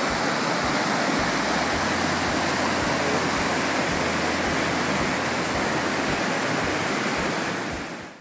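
Upper Whychus Falls on Whychus Creek, a waterfall in high flow, giving a steady roar of falling water. It fades out near the end.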